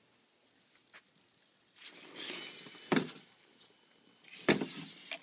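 Radio-controlled car's electric motor and gears whirring in short spurts with a faint high whine, broken by two sharp knocks about three and four and a half seconds in.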